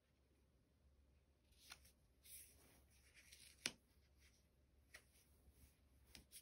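Faint rustling of a paper photo card being handled and pressed flat against a wall, with one sharper tap a little past halfway and a few small clicks near the end.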